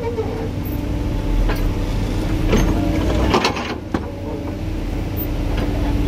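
Diesel engines of a JCB backhoe loader and a stuck Tata tipper truck running steadily as the backhoe's bucket pushes the truck from behind, with a few sharp clanks about a second and a half, two and a half and three seconds in.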